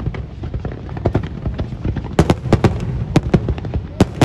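Fireworks exploding over a low rumble: a few scattered sharp bangs, then a quick run of them from about halfway through.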